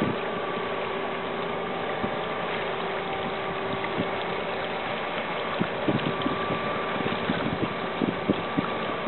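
Passing container ship's engine and machinery hum: a steady drone with a few held tones running through it, with scattered short knocks in the second half.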